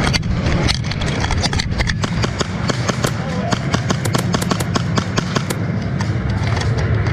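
Airsoft gunfire during a game: many sharp, irregular cracks and clicks of BB guns firing and pellets striking, thickest in the middle, over a steady low rumble and faint distant voices.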